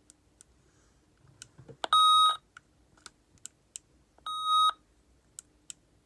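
Opus T1 UHF walkie-talkie giving two short electronic beeps, about 2 s and 4.5 s in, as its channel is changed, with faint clicks from its top knobs being turned in between.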